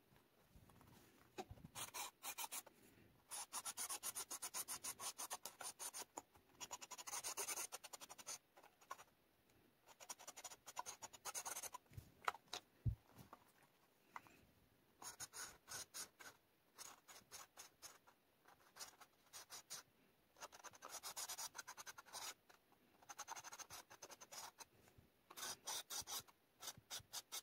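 Black felt-tip marker scribbling back and forth on paper through a plastic stencil as the letters are filled in: quick scratchy strokes in short bursts, with brief pauses between.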